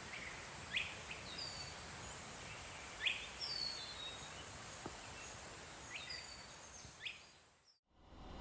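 Outdoor daytime ambience: a steady, high-pitched insect drone with a bird's short, sharp calls about four times, and fainter high chirps between them. All of it cuts off suddenly near the end.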